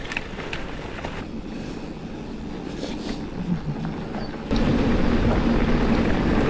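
Mountain bike's Maxxis Forekaster knobby tyres rolling over a gravel and dirt track, with small gravel clicks in the first second and wind rumble on the microphone. About four and a half seconds in the noise jumps abruptly to a louder, steady rolling rumble with a low hum.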